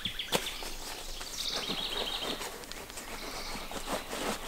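Gear being handled and stuffed back into a rucksack: rustling with several sharp knocks, the loudest just after the start. A bird trills rapidly in the background, once fading just after the start and again about a second and a half in.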